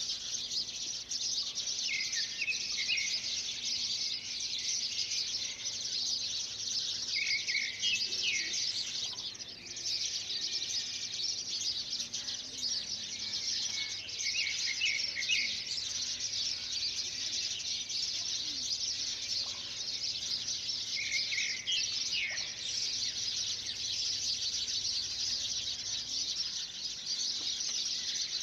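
A bird repeats a short chirping phrase about every six seconds over a steady, high-pitched chorus of insects.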